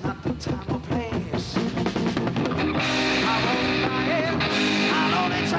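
Live rock band playing an instrumental passage, led by an Explorer-style electric guitar over drums: short choppy hits for the first couple of seconds, then sustained notes with some bends.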